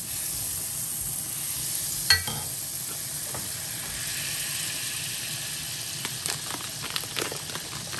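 Steady sizzling hiss of food frying in a pan, with a sharp knock about two seconds in and a few lighter clicks later on.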